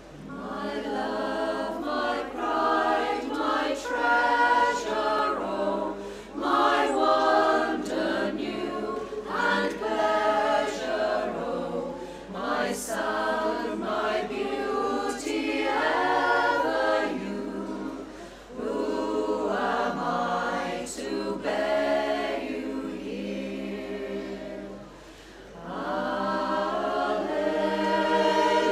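Women's choir singing a cappella in harmony, with brief dips between phrases about 18 and 25 seconds in.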